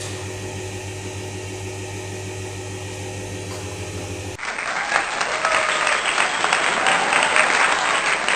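A steady mechanical hum for about the first four seconds, then an abrupt cut to a crowd applauding, a dense patter of clapping that carries on to the end.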